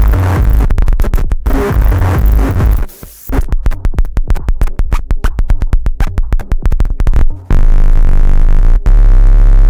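Harsh distorted electronic noise from a Gemini CDM-3600 all-in-one DJ CD player and mixer with its own output fed back into its mic input. A loud distorted beat dips about three seconds in, gives way to a fast stuttering chopped pattern, and from about seven and a half seconds becomes a sustained, bass-heavy distorted drone that cuts out for an instant near the end.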